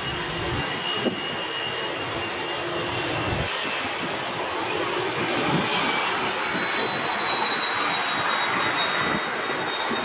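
Airbus A330-300's twin Rolls-Royce Trent 700 turbofans running at takeoff power on departure: a steady jet roar with a high fan whine that slowly falls in pitch.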